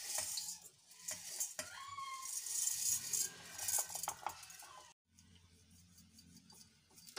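Dry roasted poha (flattened rice) flakes rattling as they pour into a stainless steel mixer-grinder jar, with clinks of the steel jar. The sound cuts off about five seconds in and turns much quieter, over a faint steady hum.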